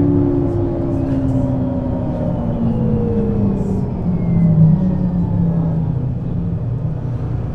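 Mercedes-Benz Citaro C2 city bus's engine and drivetrain running with a note that falls steadily in pitch as the bus slows. A thin whine slides down alongside, and the engine swells briefly about four and a half seconds in.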